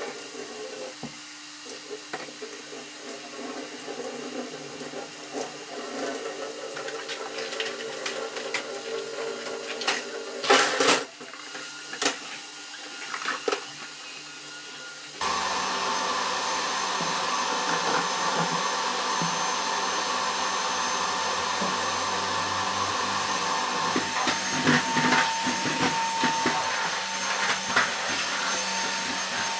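Vacuum cleaner running with a steady motor drone, with a few knocks and clatters in the first half. About halfway through it turns suddenly louder and fuller, and it keeps running.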